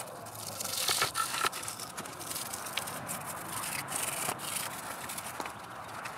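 A stiff brush scrubbing the oily deposits out of the ports of an intake manifold runner control plate, a steady scratchy rubbing with a few sharp clicks as the brush knocks against the metal.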